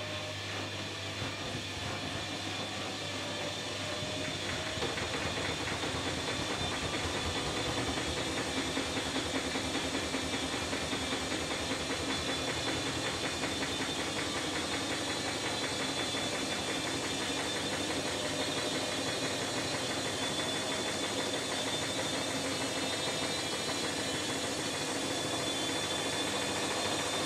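Electrolux EWF9042R7WB front-loading washing machine spinning up its drum with a light load. The motor whine rises slowly in pitch and the sound gets louder over the first few seconds, then runs on with a steady vibrating rumble.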